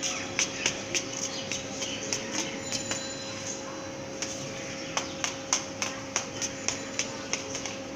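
A toddler's sandals stepping on a concrete floor: a string of light, irregular clicks, a few a second, over a steady hum.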